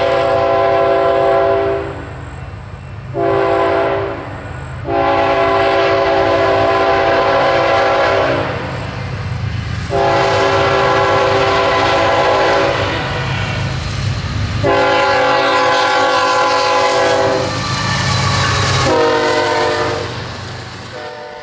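BNSF freight locomotive's multi-chime air horn blowing a series of blasts, mostly long with two short ones, over the low rumble of its diesel engines, as for a grade crossing. The last blast drops in pitch as the locomotive passes.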